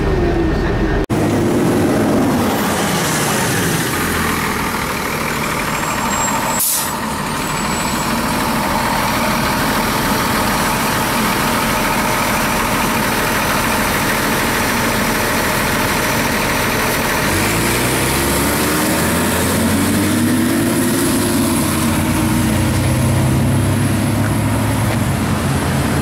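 Cummins ISC diesel of a 2002 Blue Bird 40-foot transit bus idling at the curb, with a short air-brake hiss about seven seconds in. About eighteen seconds in the bus pulls away: the engine note rises, and it changes a few seconds later as the Allison automatic shifts up.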